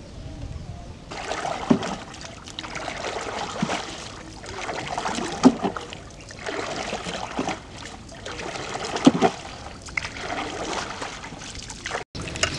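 Water swishing and splashing in repeated surges about every two seconds as a small boat is poled through shallow water, with a few short sharp knocks among them.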